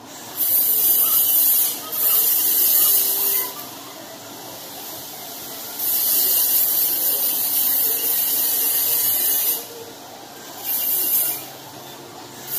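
High-pitched hiss of compressed air, switching on and off abruptly in four bursts, the longest lasting about four seconds.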